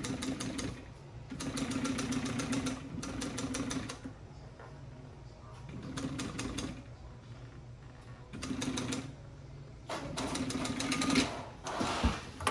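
Industrial sewing machine stitching seat-cover panels together in several short runs of fast needle strokes over a steady motor hum, stopping and starting as the seam is guided and lined up.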